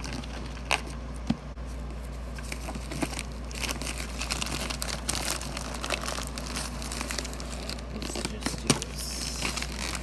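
Grey plastic mailer bag crinkling and rustling as it is handled and opened, with a few sharper crackles. The crinkling gets busier about a third of the way in.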